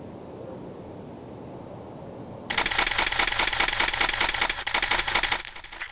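A low steady rumble, then about two and a half seconds in, the dense, rapid clicking of many camera shutters starts suddenly, a paparazzi crowd photographing, and thins out near the end.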